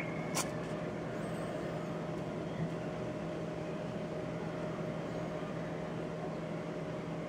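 Steady low background hum, with a single sharp click about half a second in as a finger taps the GPS navigator's touchscreen.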